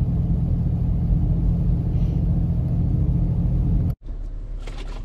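Steady low drone of a Toyota FJ Cruiser's V6 engine and tyre rumble heard inside the cabin while driving. It cuts off abruptly about four seconds in, leaving a quieter low hum with a few rustles and clicks.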